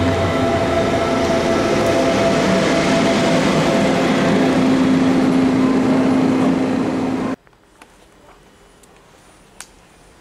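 S-Bahn Stuttgart electric multiple unit running past the platform close by: a loud rumble with a steady electric whine over it. The sound cuts off suddenly about seven seconds in, leaving quiet with a few faint clicks.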